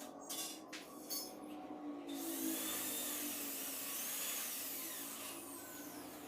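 Steel cleaver blade being worked with tools: a few short scraping strokes, then about two seconds in a power tool grinding the steel with a steady hiss for about three seconds, fading near the end.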